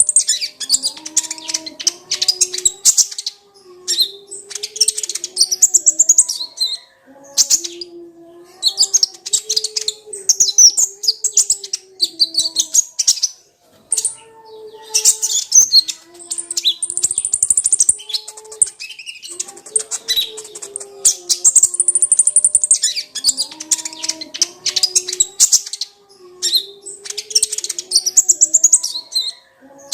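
Brown-throated sunbird (kolibri ninja) singing: rapid, high-pitched chattering phrases a few seconds long, separated by brief pauses, over a lower wavering tone.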